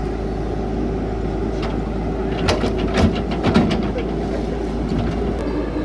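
CAT 312 excavator's diesel engine running steadily under work, with a quick cluster of sharp metallic knocks about two and a half seconds in.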